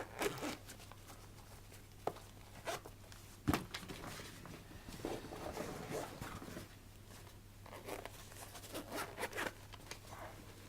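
Zipper on a gear pouch pulled in several short runs, with rustling and light knocks of items being handled.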